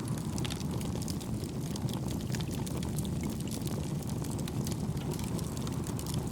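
Wood fire crackling, with many small sharp pops and snaps over a steady low rushing noise of wind or gentle waves.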